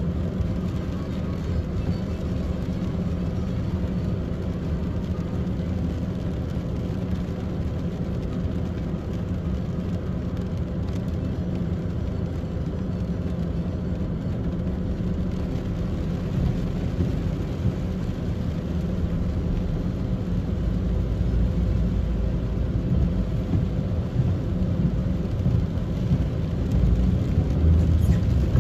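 Car cabin noise in heavy rain: a steady low drone from the car with rain hissing on the windscreen and body. The low rumble grows louder over the second half as the car pulls away.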